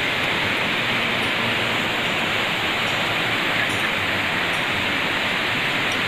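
Waterfall, water pouring down over rock ledges in a steady, even rush.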